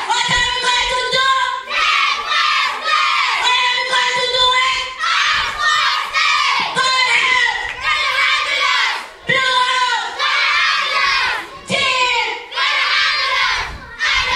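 A group of children chanting a cheer in unison, loud shouted phrases with short breaks between them.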